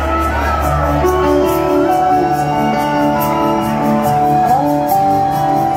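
Live rock band playing: sustained notes over a steady drum beat with regular cymbal hits, one note sliding up about four and a half seconds in.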